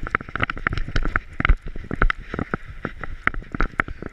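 GoPro strapped in a body harness on a dog's back, knocking and rubbing as the dog moves about: a quick, irregular run of clicks and thumps, several a second.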